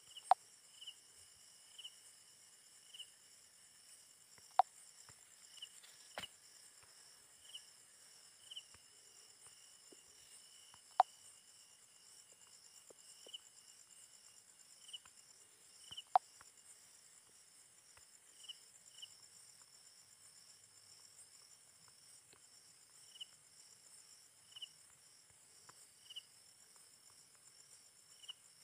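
Faint, steady, high-pitched insect chorus with short chirps about once a second. Several sharp clicks are scattered through it, four of them much louder than the rest.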